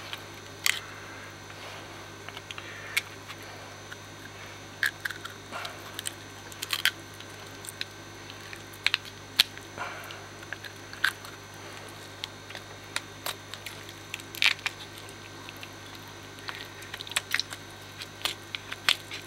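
Small knife scraping and cutting meat and sinew off the bone of a severed catfish head, giving irregular short clicks and wet crunches.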